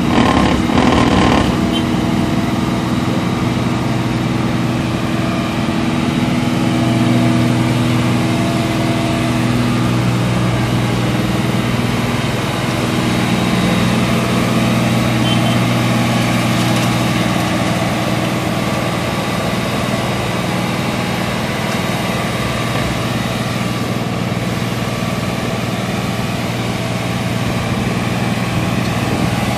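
Engine of road-works machinery running steadily near idle, its pitch shifting a few times, over constant work-site noise, with a brief clatter about a second in.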